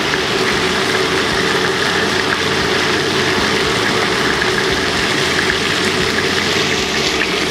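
Cubes of lamb frying in plenty of hot oil in a wok, a steady, loud sizzle. The meat is being browned almost as if deep-fried.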